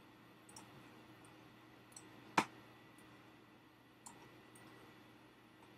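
Computer mouse button clicks, a few scattered ones with a single louder click about two and a half seconds in, over a faint steady hum.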